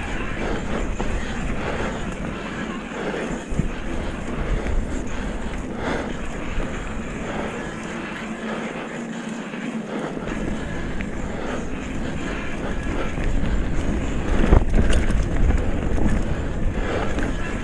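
Wind rumbling on the microphone over the rattle and tyre noise of a retro Norco Bush Pilot mountain bike riding a trail, with a few knocks, loudest about fifteen seconds in.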